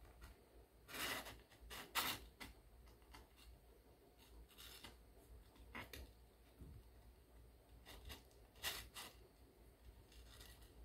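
Kittens wrestling on a fleece blanket: a handful of brief rustles and scratches of paws and claws on the fabric, the loudest about two seconds in.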